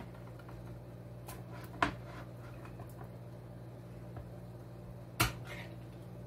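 A few sharp clicks and knocks of a metal food can being handled as its artichoke hearts are tipped into a roasting pan. The two loudest knocks come about 1.8 s and 5.2 s in, over a steady low hum.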